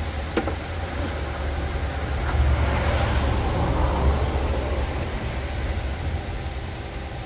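Mazda 6 engine idling steadily with the bonnet open, running smoothly and quietly on a freshly replaced air filter; it gets a little louder for a couple of seconds in the middle. A single sharp click near the start.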